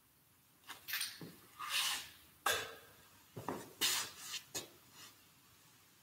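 Short clinks, scrapes and rubs of altar vessels being handled on the altar, coming in a loose run of about a dozen small sounds that starts about a second in and dies away after about four and a half seconds: the chalice and paten being purified after communion.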